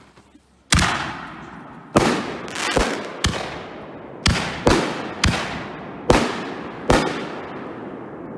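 Consumer aerial firework shells going off: about ten sharp bangs in quick succession, some close together, each trailing off in a long echo.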